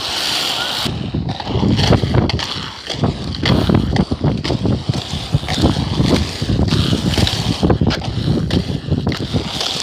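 Small wheels rolling over rough asphalt, a rough rattling rumble with many small knocks, mixed with wind buffeting the microphone.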